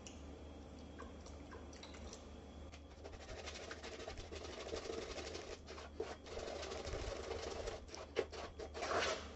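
Wooden spoon beating pancake batter in a plastic mixing bowl: a fast, even run of soft wet slapping strokes that starts about three seconds in, with a few knocks of the spoon near the end. A low steady hum runs underneath.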